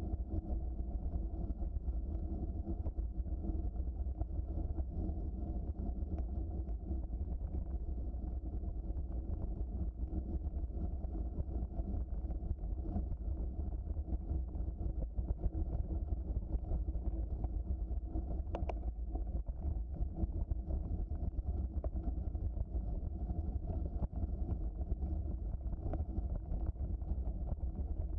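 Steady low rumble of a bicycle rolling along a trail, tyre noise mixed with wind on the microphone, with one short click about two-thirds of the way in.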